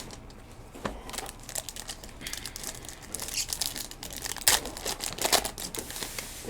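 Wrappers of Finest baseball card packs crinkling and tearing as packs are opened and the cards handled, in irregular crackly bursts with a few sharper snaps.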